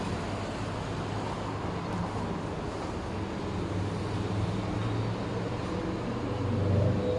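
Steady vehicle engine and traffic noise: a low hum that grows slightly louder near the end.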